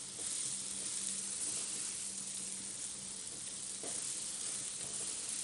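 Bell peppers, cabbage and garlic sizzling in hot oil in a wok as they are stir-fried: a steady hiss.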